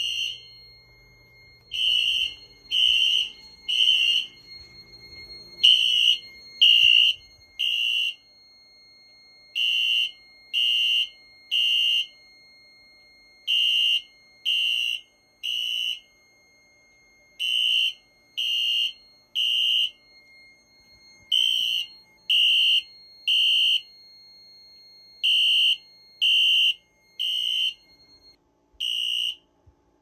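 Wheelock LED3 fire alarm horns sounding the temporal-3 evacuation pattern: three half-second blasts about a second apart, a pause, then again. They are very loud. The horns stop after a single blast near the end as the alarm is silenced.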